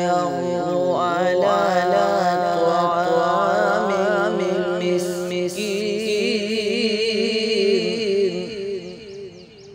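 A male voice reciting the Quran in slow, melodic tajweed chant, drawing out long held notes with wavering, ornamented pitch. The voice fades out near the end.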